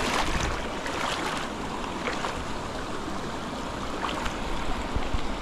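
River water rushing and splashing around the legs of a person wading through it: a steady hiss of moving water.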